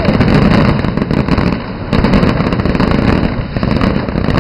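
Fireworks display bursting: a dense, continuous run of crackling and bangs from the shells, with heavier blasts at the start and about two seconds in.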